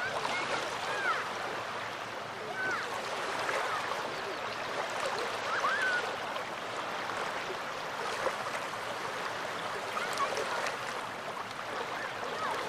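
Small waves of the Gulf of Finland washing on the shore in a steady rushing wash, with short faint chirp-like calls scattered over it.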